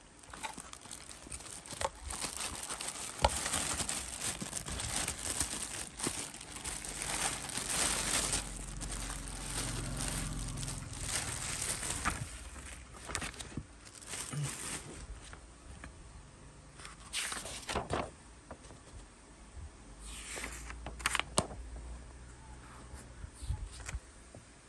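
Plastic bags and cardboard packaging crinkling and rustling as they are handled and opened, with a few knocks along the way.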